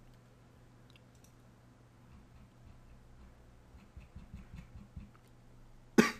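Sparse faint clicks of computer keys and mouse buttons, with one sharp, louder click near the end, over a low steady hum.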